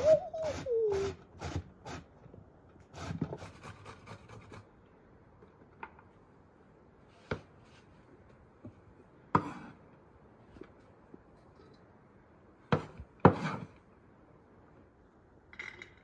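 Raw pumpkin being grated on a metal box grater: rasping strokes at about three a second for the first two seconds and another short run a second later. After that come only scattered single knocks and taps.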